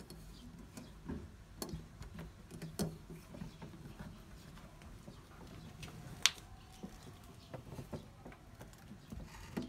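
Light clicks, taps and scrapes from a door's metal mail slot flap as it is held open by hand and pawed at by a cat from inside, with one sharp, loud click about six seconds in.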